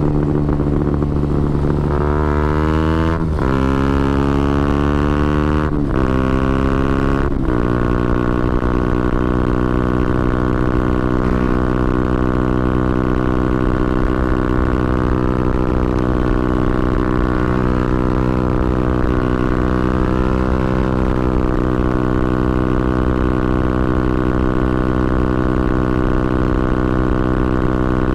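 2012 KTM Duke 125's single-cylinder four-stroke engine through a Scorpion exhaust with the dB killer removed, heard onboard. It pulls up through the gears, its pitch rising in each gear with three quick upshift breaks in the first seven seconds or so. After that it holds steady revs while cruising.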